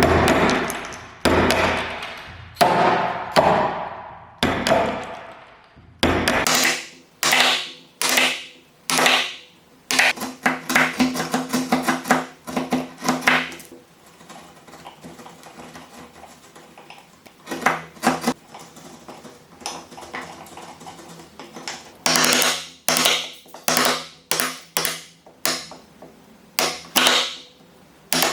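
Hammering on wood: a long series of sharp, irregular strikes, each ringing out briefly, some in quick runs, with a quieter lull in the middle.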